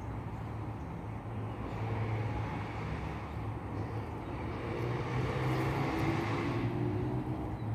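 Steady low engine hum of a motor vehicle, growing louder through the middle and easing near the end.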